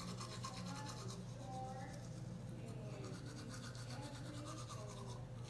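Toothbrush scrubbing teeth with quick, repeated back-and-forth strokes.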